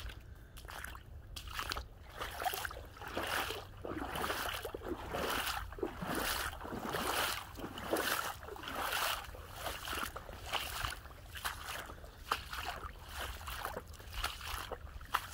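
Footsteps sloshing and squelching through shallow standing water and soft mud on a flooded woodland trail, at a steady walking pace of about one step a second.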